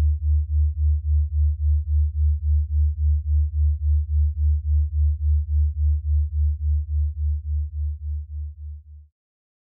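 A low synthesized tone pulsing evenly about three times a second, like a slow throb. It fades away over the last couple of seconds and stops near the end.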